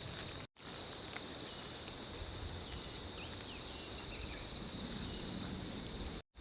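Insects trilling outdoors in one steady high-pitched tone, with the sound cutting out briefly twice.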